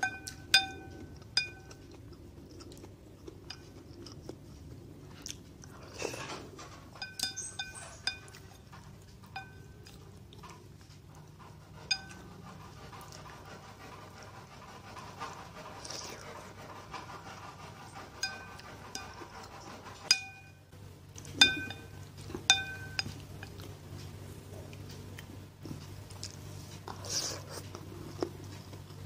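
Eating spicy instant noodle soup: a spoon and fork clink against a ceramic bowl again and again, each clink ringing briefly, with a few slurps of broth and noodles, one near the end.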